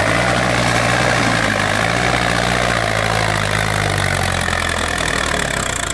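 Tractor's diesel engine running hard under heavy load as it pulls through deep mud, black exhaust smoke showing it working at full fuel. A steady, deep engine note that holds its pitch.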